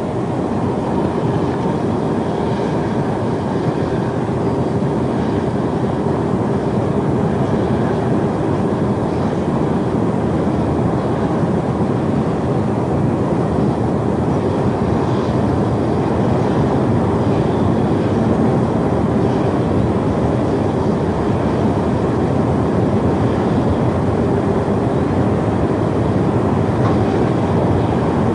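Storm wind blowing hard and steadily, a dense low rushing noise with no let-up, as of a tornado or hurricane.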